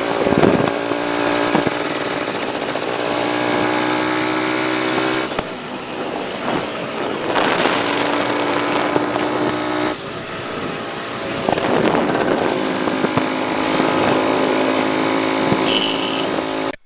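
Motorbike engine running under load on a rough dirt track, its revs rising and falling, with several surges of noise over it. The sound cuts off abruptly near the end.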